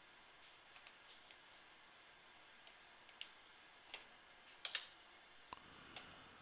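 Computer mouse and keyboard clicks, scattered and faint, about ten in all. A close pair about two-thirds of the way through is the loudest, over quiet room hiss.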